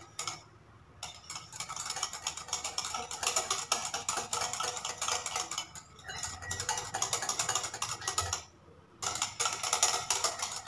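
Wire hand whisk beating a runny mix of yogurt, condensed milk and oil in a ceramic bowl: a fast, busy rattle of wire against the bowl. It stops briefly just after the start and again about eight and a half seconds in.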